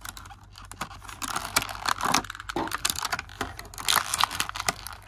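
Small plastic action-figure parts being handled: irregular sharp clicks and light crinkling, some in quick runs.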